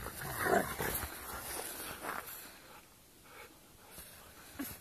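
Two Rottweilers scuffling and play-fighting in deep snow, a rough scratchy crunching and shuffling. It is loudest about half a second in and dies down after about two seconds.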